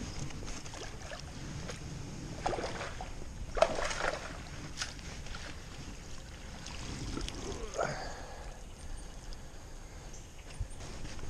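Water splashing and sloshing as a hooked fish is brought to a landing net in the shallows, with the loudest splashes between two and four seconds in.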